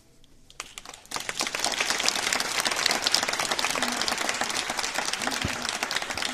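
Audience applauding, many hands clapping, starting about a second in and holding steady.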